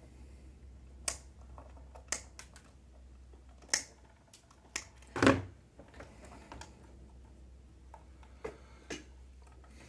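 Scattered small clicks and taps of hands handling a small circuit board and its wire leads on a workbench, with one louder knock about five seconds in.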